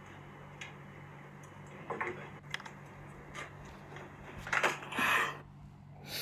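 Faint scattered clicks and handling noises over a low steady hum, with a short rush of noise about four and a half seconds in.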